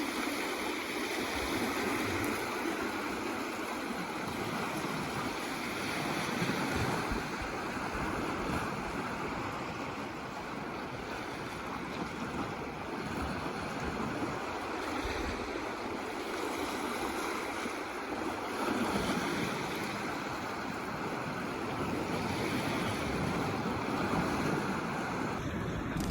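Baltic Sea waves washing against the shore in a steady, slowly swelling rush, with some wind.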